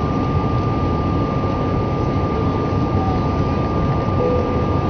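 Steady cabin noise of an Airbus A319-111 in its climb: a dense low rush of engines and airflow with a thin steady whine above it.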